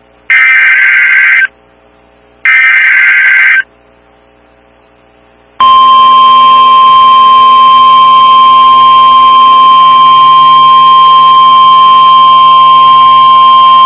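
NOAA Weather Radio Emergency Alert System signal. The last two of three SAME digital header bursts come first, each about a second of buzzy data tones. After about two seconds of quiet, the steady single-pitch 1050 Hz warning alarm tone starts about five and a half seconds in and holds, loud. Together they mark the start of a tornado warning broadcast.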